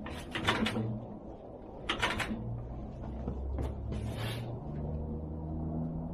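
A few separate metallic clicks and knocks as the choke and controls on a 1949 Farmall Cub tractor are set before a cold start, over a low steady hum.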